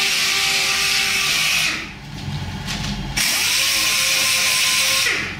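Pneumatic random orbital sander running on a plastic car molding, 500-grit abrasive on a soft pad: a steady whine over hissing air. It eases off for about a second near the middle, runs again, and stops near the end.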